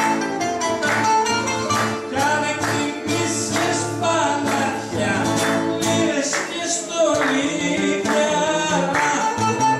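Live bouzouki and acoustic guitar playing a Greek song, with a man singing over the plucked strings.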